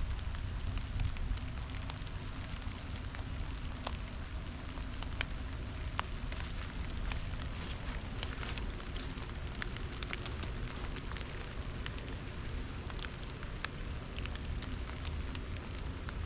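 Light rain falling on forest leaves: scattered, irregular drip ticks over a steady low rumble.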